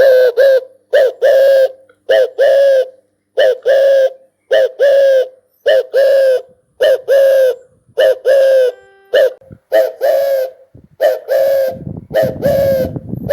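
Spotted dove cooing: a loud, regular series of coo notes, mostly in pairs, about one pair a second. A low rumble joins near the end.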